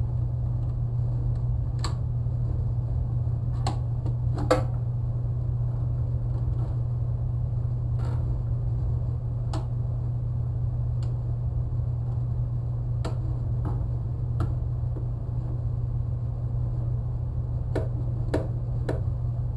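A steady low hum throughout, with scattered light clicks and knocks, about a dozen in all, from stock being handled and tried in the chop saw's vise clamp.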